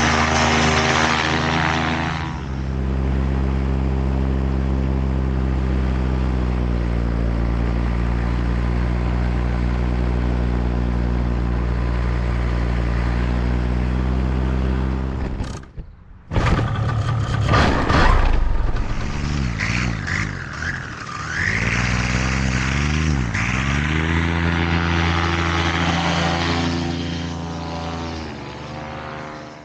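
Paramotor engine and propeller running at a steady speed. After a short break the engine speed dips and rises several times, and then the sound fades out.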